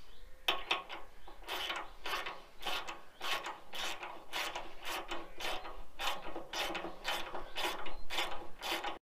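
Socket ratchet wrench clicking as it is swung back and forth, tightening a leaf spring mounting bolt. The clicks come in quick repeated strokes, about two to three a second, and stop abruptly near the end.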